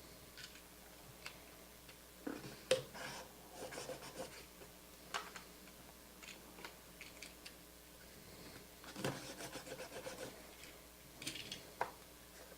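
Faint rubbing, scraping and a few sharp clicks from handling trading-card packaging and encased cards, in several short bouts.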